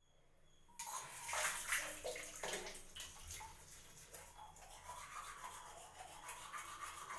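Manual toothbrush scrubbing teeth in quick, repeated back-and-forth strokes, starting about a second in.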